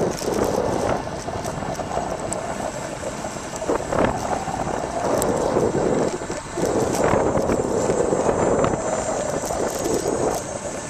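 Wind buffeting a small camcorder's microphone while it moves along, a rough, gusting rush, with a few sharp knocks about four, five and seven seconds in.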